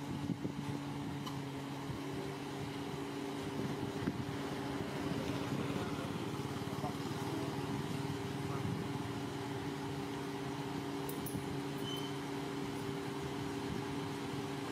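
Steady mechanical hum of a car sitting with its engine running, holding a few fixed low tones at an even level.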